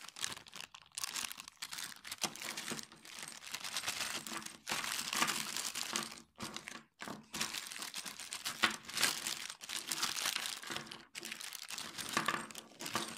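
Clear plastic bags crinkling and rustling as they are handled and opened, in bursts with brief pauses.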